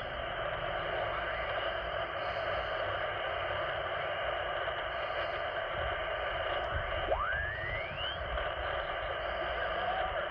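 Alinco HF transceiver's speaker hissing with 40-metre band noise as the tuning knob is turned across the band in lower sideband. About seven seconds in, a whistle sweeps up in pitch as the tuning passes over a carrier.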